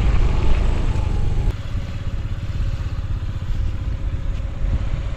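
Motorbike engine running steadily with a low rumble, easing slightly in level about a second and a half in.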